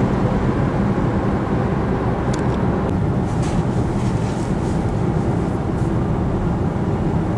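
Steady road and engine noise inside the cabin of a Renault Captur cruising on an open road.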